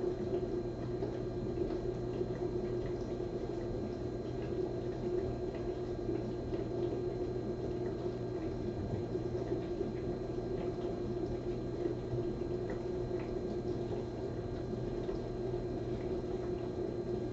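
Steady low hum that does not change, with faint scattered ticks.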